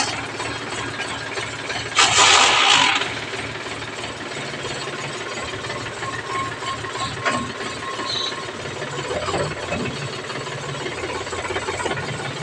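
Tractor diesel engine idling steadily with an even low pulse. About two seconds in, a loud rushing hiss lasts about a second, and a short sharp click comes about seven seconds in.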